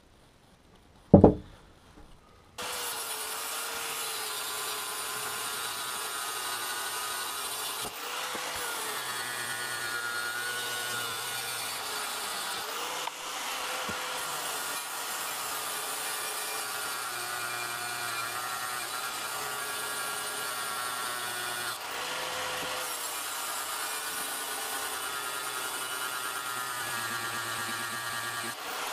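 A sharp knock about a second in, then an angle grinder with an abrasive disc starts and runs steadily, grinding rust off an old steel axe head, with a constant motor whine. The sound dips briefly three times as the disc is lifted and set back on the steel.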